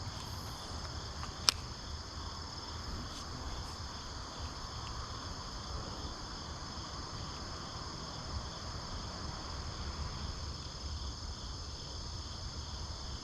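Steady chorus of insects, likely crickets, with a faint low rumble beneath. One sharp click sounds about a second and a half in.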